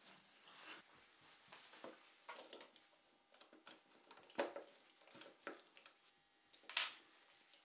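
Quiet workbench handling: light clicks and taps of wood and a power tool being fitted against a wooden holder on a plywood base, with two sharper knocks about four and a half seconds in and about seven seconds in.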